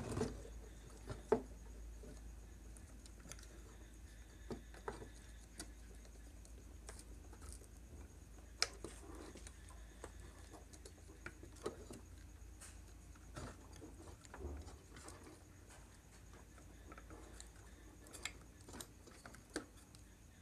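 Faint, scattered clicks and taps of a soldering iron and hand tools against a TV power-supply circuit board while a transistor is desoldered, over a low steady hum.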